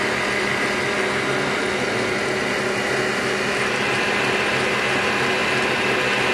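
Stand mixer running steadily at one speed, its whisk beating egg and sugar batter for a sponge cake in a stainless steel bowl.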